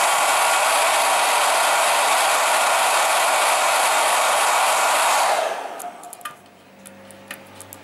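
Hot-air tool blowing steadily, heating a motorcycle fuel-tank sticker to soften its glue; it switches off about five and a half seconds in, leaving a few faint clicks and taps.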